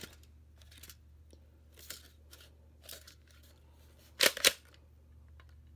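Airsoft gun firing indoors: two sharp snaps about a quarter second apart, a little past four seconds in, after a few faint handling clicks.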